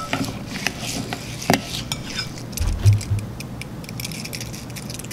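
Metal spoon scooping and stirring plastic vase-filler beads into wet clear-glue slime in a glass bowl: scattered clicks and chinks of the spoon and beads against the glass, with a dull low bump about three seconds in.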